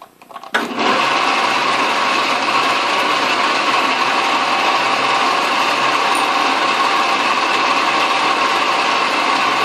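Atlas metal lathe switched on about half a second in, then running steadily, its spindle turning an end mill held in the chuck; a few clicks come as it starts, then a steady machine whine with several held tones.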